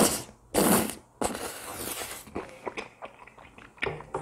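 Close-miked slurping of rosé tteokbokki in a creamy sauce: two short, loud slurps in the first second and a longer one after. Quieter wet chewing with small mouth clicks follows.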